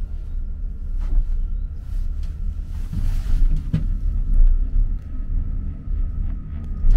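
Gondola cabin riding along its cable: a steady low rumble with a faint steady whine and a few light knocks. The rumble swells right at the end.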